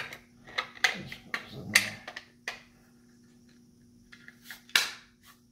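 Handling noise: a quick run of sharp clicks and light knocks, a quiet pause of about a second and a half, then a few small ticks and one sharper click near the end, over a faint steady hum.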